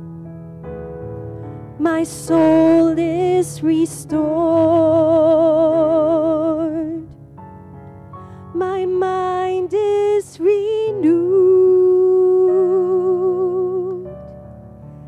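A woman singing a slow worship song into a microphone with vibrato, over soft sustained instrumental accompaniment. She sings two phrases, one starting about two seconds in and the next about nine seconds in.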